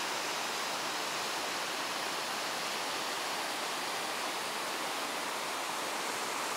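Steady rushing of a large waterfall, white water pouring down rocky cascades.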